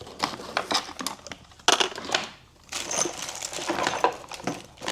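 Small clicks, taps and rustling of jewelry and packaging being handled and set into an organizer, with one sharper knock about a second and a half in.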